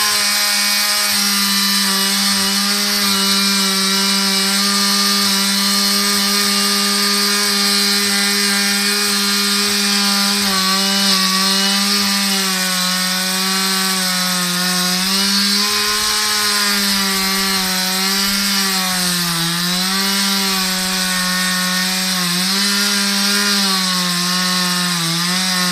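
Rebuilt Husqvarna 365 single-cylinder two-stroke chainsaw running at high revs, its pitch holding steady and sagging briefly a few times in the second half, as the saw is test-run after a new crankcase, piston, bearings and seals.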